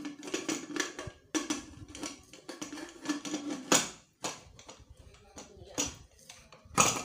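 Metal lid of a 3-litre Leo Natura Eco pressure cooker being fitted and twisted shut on the body: a run of irregular clicks, scrapes and knocks of metal on metal as the lid seats on the rim and the handles are brought together.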